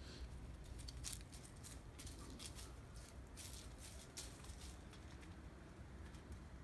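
Faint, irregular rustling and light ticks over a steady low rumble, thinning out after about four seconds.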